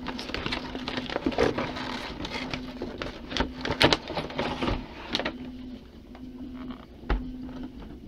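Crinkling and rustling of clear plastic packaging, with irregular sharp crackles and clicks, as a boxed cloth doll is unpacked by hand. A low hum comes and goes underneath.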